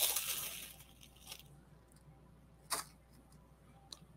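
Paper pieces peeled off a Xyron sticker maker's adhesive sheet: a short tearing rasp at the start that fades over about a second. A sharp tap follows nearly three seconds in, with a couple of light clicks.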